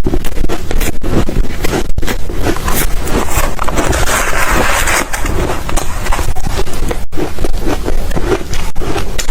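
Ice being bitten and chewed close to the microphone: loud, continuous crunching and crackling, with a smoother grinding stretch about halfway through.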